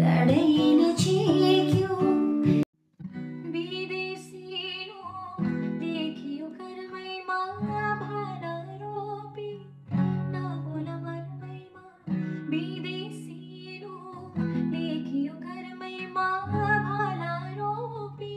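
Background music: plucked acoustic guitar with singing. The track cuts out briefly about three seconds in, then carries on more quietly.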